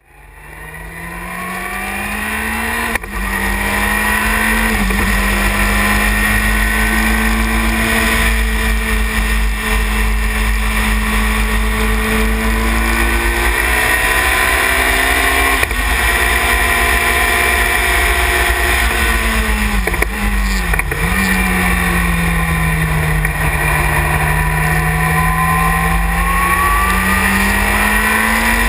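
Sylva Phoenix sports racing car's engine heard onboard at speed, its pitch climbing under acceleration and dropping sharply at gear changes: an upshift about three seconds in, then a dip with quick blips around two-thirds of the way through as it brakes and shifts down, before climbing again. A low rumble of wind and road sits under it throughout.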